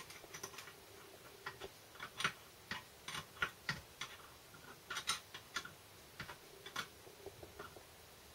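Small sharp metallic clicks and ticks, irregular and spaced apart, as a hand spanner works bolts on a gearbox casing.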